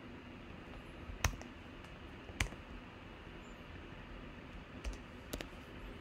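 Scattered clicks from a computer keyboard and mouse over faint steady room hiss: two sharper clicks in the first half and a few softer ones near the end.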